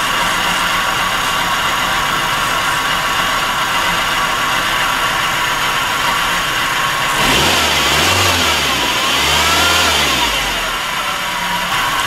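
A 1997 Nissan Altima's 2.4-litre four-cylinder engine running at idle with the cylinder-4 misfire that makes it run rough. About seven seconds in, the engine speed rises and falls twice.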